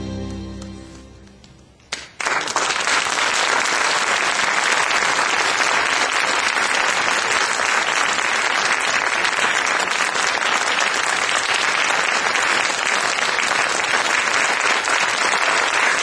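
Instrumental music with sustained tones fading out, then about two seconds in an audience starts applauding and keeps clapping steadily.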